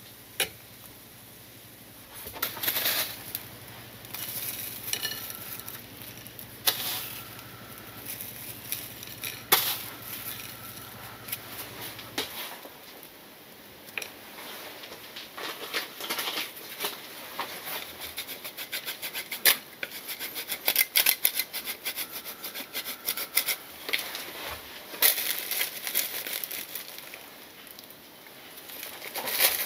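Metal tongs clinking and tapping against a ceramic plate as gnocchi are set down. Then light pattering and small ticks as toasted bread crumbs, bacon bits and grated cheese are sprinkled onto the plate by hand.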